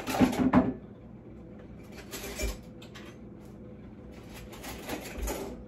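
Kitchen handling noises: a burst of clatter and rustling at the start, then a couple of short knocks and rustles about two and a half and five seconds in.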